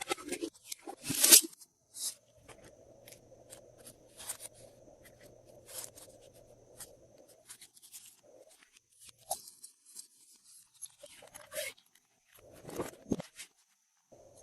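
Glossy slime being kneaded and squished by hand, making a string of small sticky clicks and pops, with a loud crunchy crackle about a second in.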